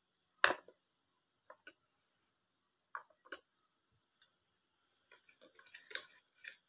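Miniature red plastic toy cookware clicking and clattering: a toy pan knocked and set down on the toy stove in several separate sharp taps, then a quick run of tapping and scraping near the end as a small toy utensil works in the pan.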